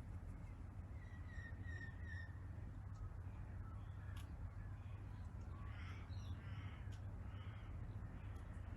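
Faint crows cawing in the distance, a few harsh calls about two thirds of the way through, over a steady low rumble.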